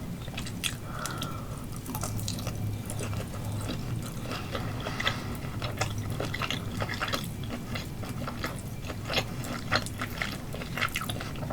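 Close-miked chewing of grilled octopus: wet, sticky mouth clicks and smacks scattered throughout.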